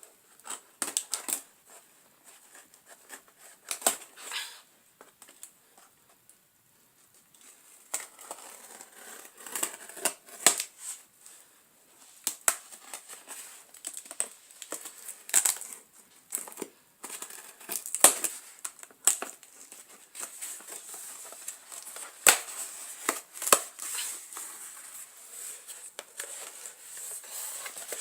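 A shipping box being opened and its packing unwrapped: irregular crinkling and rustling of plastic wrapping, with tape tearing and sharp cracks. There is a quieter pause about five seconds in.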